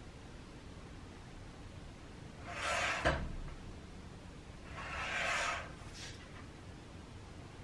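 Two sliding scrapes about two seconds apart, the first ending in a sharp knock, with a short faint scrape after the second: a paper trimmer's cutting head slid along its rail, cutting printed labels.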